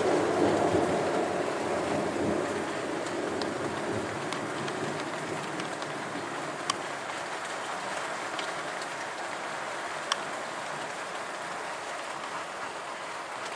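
Heavy thunderstorm rain pouring steadily, with the tail of a low thunder rumble dying away over the first few seconds. Two sharp ticks sound about seven and ten seconds in.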